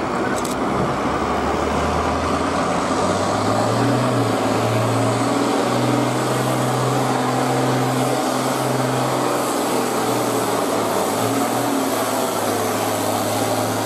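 International Harvester tractor's diesel engine working hard under full load as it drags a pulling sled. The engine note climbs about three seconds in, then holds steady with a few brief dips.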